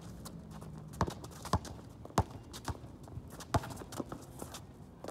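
A basketball bouncing on an outdoor asphalt court: a run of sharp, irregular dribbles, roughly one to two a second.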